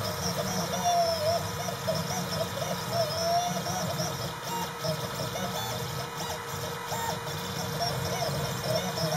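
Desktop CNC engraver's stepper motors whining as the axes move, the pitch gliding up and down and stopping and starting as the machine changes speed and direction, over a steady hum.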